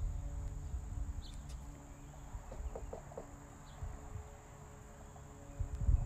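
Quiet suburban outdoor ambience: a steady high-pitched whine, a few faint short chirps, and a low rumble that eases off about halfway through.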